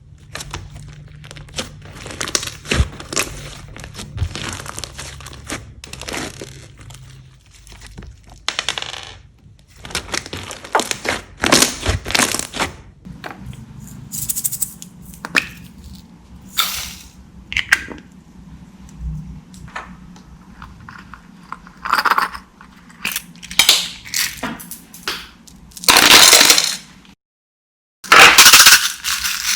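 Slime being kneaded and squished by hand, making irregular crackling, squelching bursts, with a brief silent break near the end.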